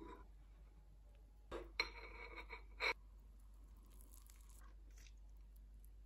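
A table knife cutting down through a layered bread sandwich and hitting the ceramic plate beneath. There are two sharp clinks about a second apart, roughly two and three seconds in.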